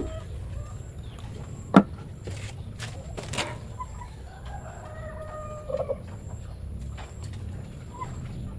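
A chicken calls once in the background, a faint pitched call lasting about a second and a half around the middle. Under it runs a steady low hum, with a sharp click a couple of seconds in.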